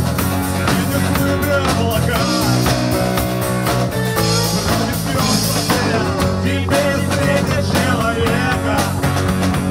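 A rock band playing live: drum kit with cymbals, bass guitar, electric guitar and strummed acoustic guitar, with a man singing lead vocals over them.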